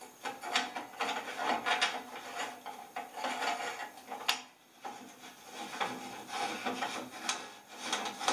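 Metal coupling being screwed by hand onto the threaded end of an exhaust pipe: repeated rasping metal-on-metal scrapes of the threads turning, with a faint ring from the pipe and a brief pause partway through.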